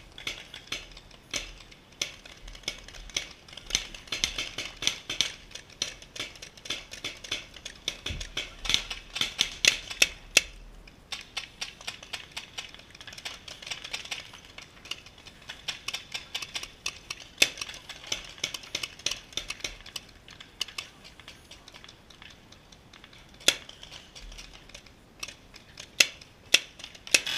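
Paintball markers firing in irregular runs of sharp pops, densest about eight to eleven seconds in and again near the end.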